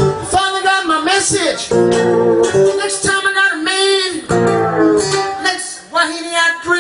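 Live blues played on guitar: bent, gliding lead notes over a low riff that comes round about every second and a half.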